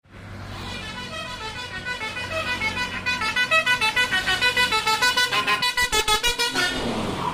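Basuri telolet bus horn playing a quick melody of short stepped notes, sped up to 1.3x. The notes come faster and louder through the middle, break off about six and a half seconds in, and end with a short falling sound.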